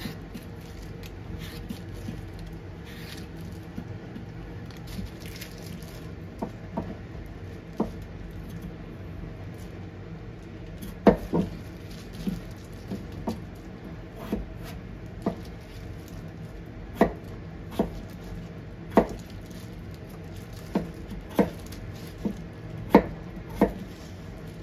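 A potato being peeled with a Y-peeler, faint scraping strokes, then cut into chunks with a kitchen knife, the blade knocking on a plastic cutting board in separate irregular strikes that grow louder and more frequent about halfway through.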